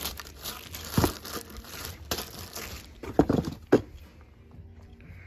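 Packaging crinkling and rustling as parts are pulled out of their box, with several sharp crackles. It dies down about four seconds in.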